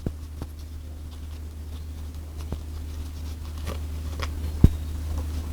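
Steady low hum of a sewing machine motor running while the needle is stopped, with scattered small clicks and taps as the material is handled. One sharper click comes about two-thirds of the way through.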